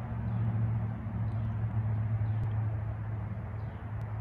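A steady low hum, with faint short high chirps repeating about once a second.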